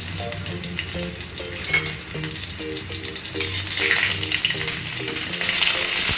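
Mustard oil sizzling in a steel kadai as whole cumin, a bay leaf, green chilli and asafoetida fry for a tempering, stirred with a metal spatula. The sizzle gets louder near the end. Background music with short repeated notes plays underneath.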